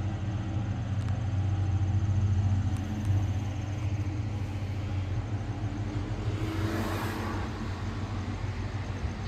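2014 Dodge Charger's engine running at a steady low idle as the car rolls slowly out at low speed, with a brief rush of noise about seven seconds in.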